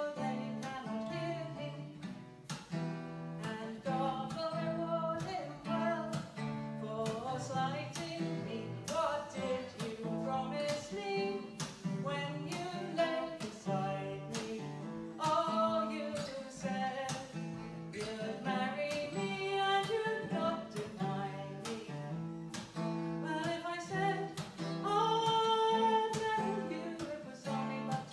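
Traditional English folk music played live: acoustic guitar accompanying a lead melody line with vibrato.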